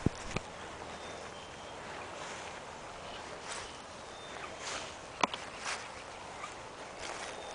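Bull terrier nosing and chewing at a piece of driftwood in dry grass: rustling of the dry grass with a few sharp clicks, the loudest about five seconds in.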